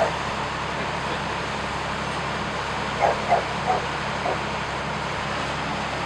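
A dog barks four quick times, about three seconds in, over a steady low engine hum.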